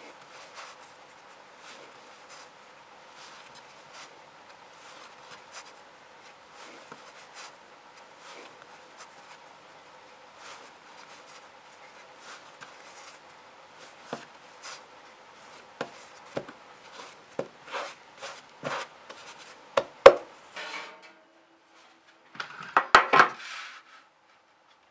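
Bread dough kneaded by hand on a floured wooden worktop: soft rubbing and pressing at first, then a series of knocks and thuds as the dough is folded and pushed down against the board. The loudest comes about twenty seconds in, and there is a quick cluster of knocks near the end.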